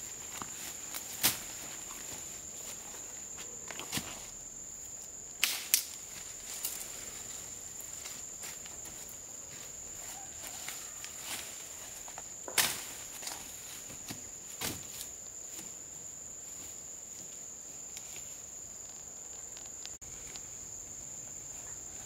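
Steady high-pitched trilling of forest insects, with a few sharp knocks and clicks scattered through it, the loudest about a second in, twice in quick succession near six seconds, and again near thirteen seconds.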